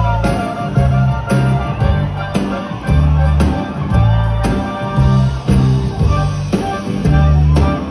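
Live band playing over a PA: guitar and keyboards over bass and drums, with a steady beat, heard from within the crowd.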